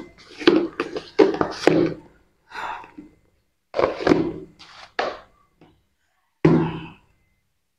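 Plastic lid of a food container being pressed down and fastened onto its bowl: a string of unevenly spaced plastic thunks, knocks and clicks.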